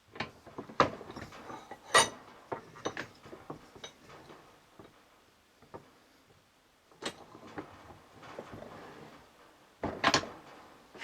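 Sharp metal clicks and knocks at uneven intervals as the parts of a Toyota 4Runner Hooke's joint (universal joint cross and yoke) are handled and fitted together by hand. The loudest knocks come about one and two seconds in, with a cluster near the end.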